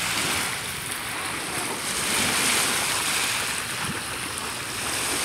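Small waves on Lake Michigan washing against the shore, a steady rush of water that swells and eases gently.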